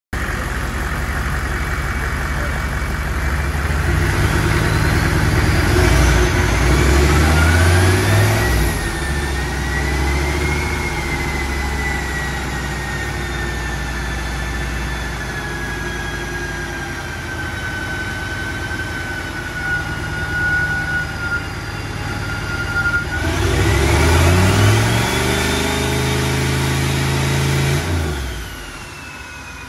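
1996 Chevrolet K2500's 6.5-litre turbo-diesel V8 running hard on a chassis dyno through a 4-inch straight-pipe exhaust, in stock tune. Its pitch climbs twice, about four seconds in and again after about 23 seconds, then drops near the end. A high turbo whistle rises with each climb.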